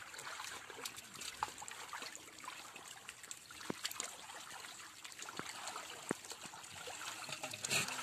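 Shallow muddy water trickling and sloshing as people wade and grope through it by hand, with scattered small splashes and clicks and one louder splash near the end.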